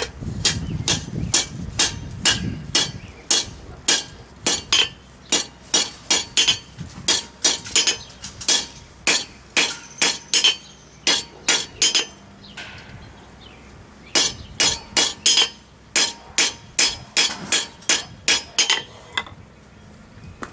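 Blacksmith's hammer striking hot steel on an anvil in steady blows, about two a second, each with a bright metallic ring. The hammering pauses for about two seconds in the middle, then a second run of blows stops shortly before the end.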